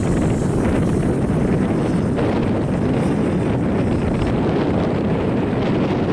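Wind buffeting the microphone of a camera on an open chairlift, a steady low rumble.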